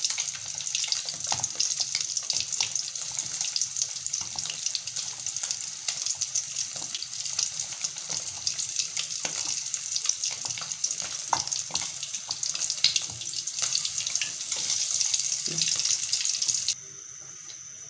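Hands squishing and kneading marinated fish pieces with roast masala and corn flour in a glass bowl: a continuous crackly, squishing noise full of small clicks. It stops suddenly near the end, leaving a faint steady high hum.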